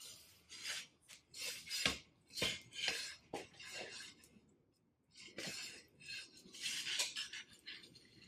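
Metal tools clinking and scraping against each other in irregular knocks and short scrapes, a handful of separate strikes, the kind of clatter made when steel blacksmith tongs and workpieces are handled.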